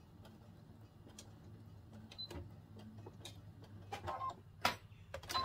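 Electric sewing machine top-stitching at slow speed, a low steady hum, followed from about two seconds in by a run of sharp clicks and taps.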